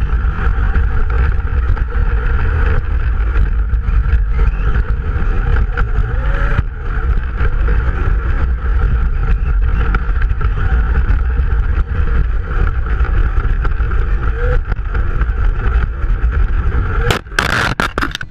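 An RC truck driving, heard from a camera mounted on it: a steady motor and drivetrain whine over heavy low rumble and wind buffeting the microphone. A cluster of sharp knocks comes near the end.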